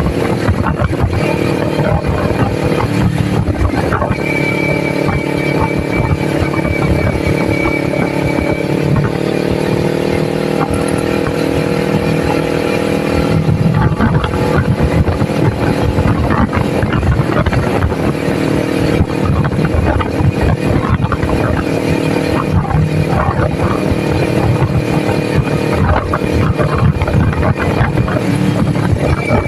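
Kawasaki Ninja 400's parallel-twin engine running steadily while the motorcycle rides at speed. The engine note rises slightly about nine seconds in and shifts again about halfway through.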